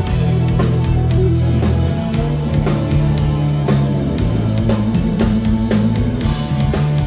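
Live rock band playing loudly: drum kit keeping a steady beat under electric guitar.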